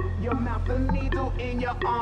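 Hip hop music with a heavy, steady bass line and a rapped vocal.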